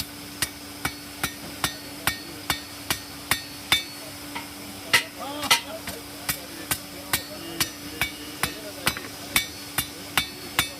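Blacksmith's hammer striking hot iron on an anvil by hand in a steady rhythm, about two to three blows a second, each with a bright metallic ring. The rhythm breaks briefly a little past four seconds in, then carries on.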